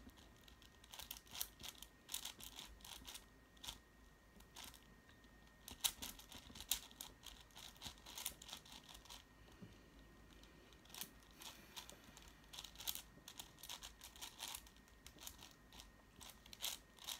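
A 6x6 Rubik's-type cube being turned by hand: its plastic layers click and clack in irregular flurries, with short pauses between groups of turns, while its centres are being solved.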